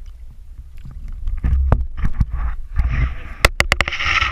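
Seawater sloshing and splashing around the camera as it breaks the sea surface, with a low rumble of moving water and a few sharp knocks. About three and a half seconds in comes a quick run of sharp clicks, and a hissing wash of water grows from about three seconds in.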